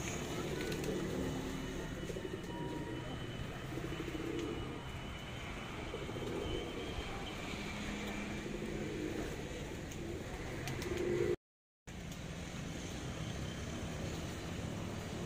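Domestic pigeons cooing, a series of low, repeated coos over a steady low background hum. The sound cuts out completely for about half a second near the end.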